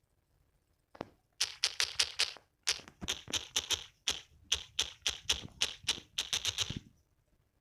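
Typing on a smartphone keyboard: rapid clicking taps, several a second in uneven runs, starting about a second in and stopping near the end.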